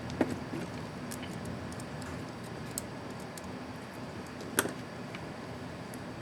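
Backspace keycap on an ASUS ZenBook UX31E laptop keyboard clicking as it is handled: two sharp plastic clicks about four seconds apart, the first near the start, with a few faint ticks between them. A steady low hum runs underneath.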